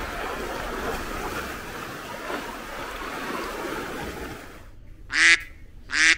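Surf washing on a beach, a steady rushing noise that drops away after about four and a half seconds. Then two loud, short, pitched calls follow, under a second apart.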